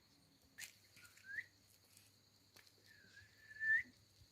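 Puppy whimpering: two thin, high whines, a short one about a second in and a longer one near the end, each rising in pitch at its close.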